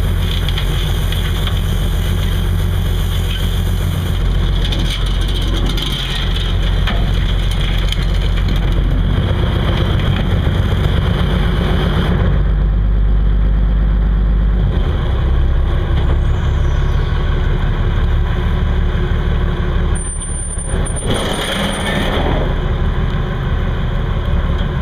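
Prawn trawler's inboard engine running steadily under way, a loud low drone with the rush of water and wind over it.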